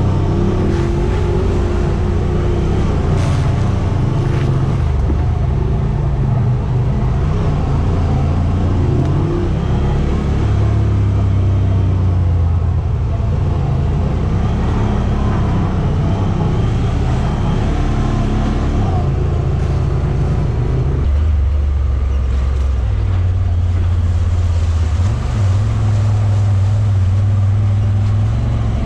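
Side-by-side UTV engine running under way, its pitch stepping up and down as the throttle changes. There is a marked drop a little past two-thirds through, and the pitch climbs again near the end.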